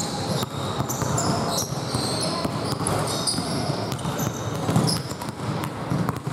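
Basketball being dribbled on a hardwood court, a run of bounces, with sneakers squeaking in short high chirps as players cut and run.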